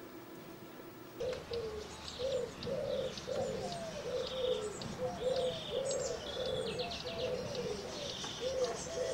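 Birds calling from about a second in: a steady run of low cooing notes, about two a second, under higher chirping and twittering.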